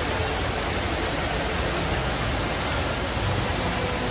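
Fountain water falling and splashing steadily into its basin.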